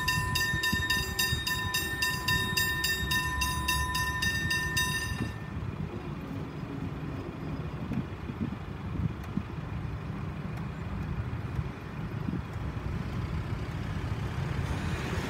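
Level-crossing hybrid bell ringing in rapid repeated strokes over a low rumble, then cutting off about five seconds in: the warning ends as the crossing clears and the boom gates begin to rise.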